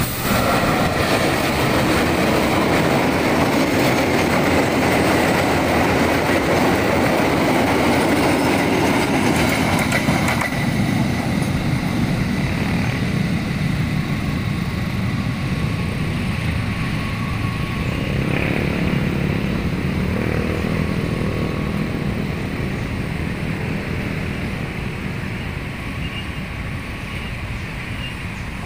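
Diesel-hauled ballast train passing close by, the locomotive engine and loaded wagons rumbling over the rails. About ten seconds in the sound changes suddenly to the train heard farther off, slowly fading away.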